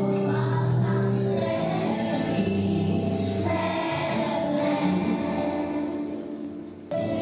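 Children's choir singing, holding long notes together. The sound dips near the end and then comes back abruptly.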